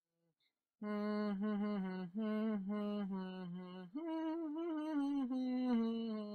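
A single voice singing a slow, wordless tune in long held notes that waver slightly in pitch, starting about a second in.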